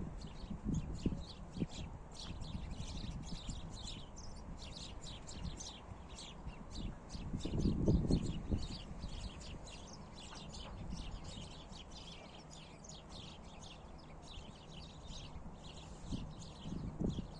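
Many small birds chirping busily throughout, with footsteps crunching on snow early on. Wind rumbles on the phone's microphone about halfway through and again near the end.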